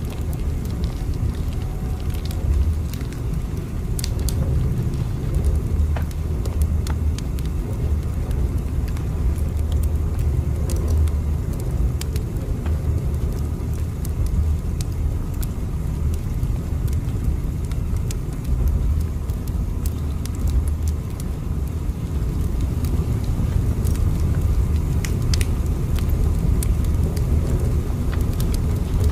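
Steady low rumble of a moving train, with scattered light clicks and crackles over it.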